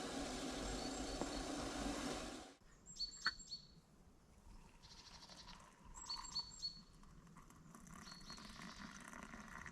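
A steady hiss that cuts off suddenly after about two and a half seconds. Then, in near quiet, three short bursts of high, sharp chirps from an unseen animal in the night forest, each burst made of a few quick notes.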